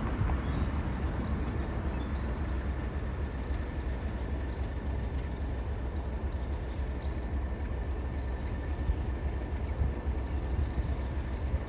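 Steady rumble of a train running on the line, with wind buffeting the microphone.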